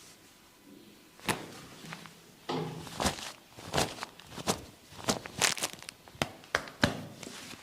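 A barber's hands slapping during a head and shoulder massage: a run of about a dozen sharp strikes at uneven spacing, starting about a second in.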